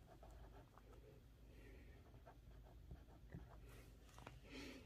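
Near silence: room tone with faint, scattered small ticks and light handling sounds.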